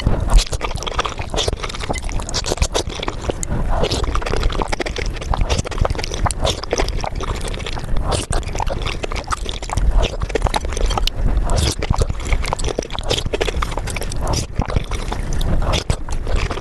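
Eating sounds of a person eating spicy soft tofu soup, sped up five times: a dense, fast run of slurps, chewing and wet mouth clicks. The sound cuts off suddenly at the very end.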